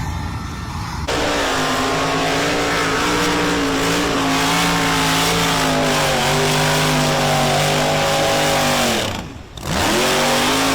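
A 4x4's engine revving hard and held at high revs for several seconds, then the throttle lifts and the pitch drops sharply before it revs back up near the end.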